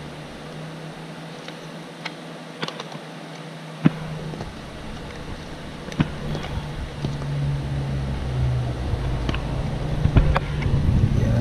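A few sharp clicks and knocks of hands handling motorcycle headlight parts and a rubber headlight cover, over a steady low hum. A low rumbling noise builds in the second half.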